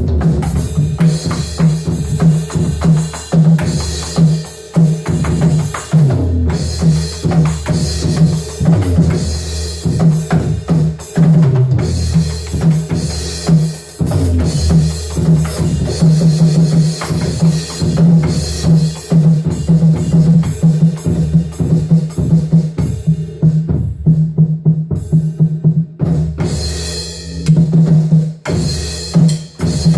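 A drum kit played in a loud improvised groove: bass drum and snare struck in quick succession, with the busy high end thinning out briefly about three quarters of the way in.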